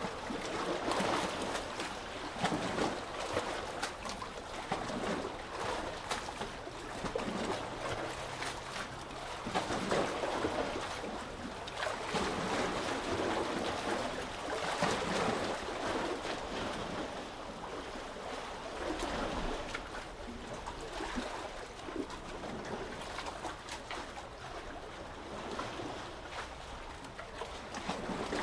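Sea waves washing in and out, the noise swelling and easing every few seconds, with many small crackles running through it.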